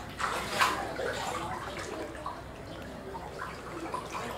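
Floodwater splashing and sloshing around a person's legs as they wade through it inside a house. The loudest splashes come in the first second, then it settles to quieter, uneven sloshing.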